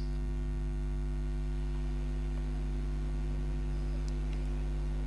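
Steady low electrical mains hum, a deep drone with a buzzy row of overtones above it.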